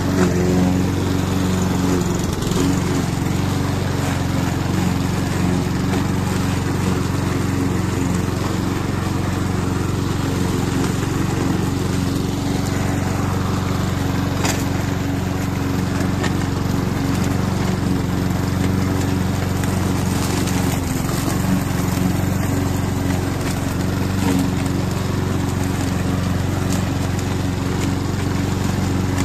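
Roller lawn mower engine running steadily while mowing the lawn.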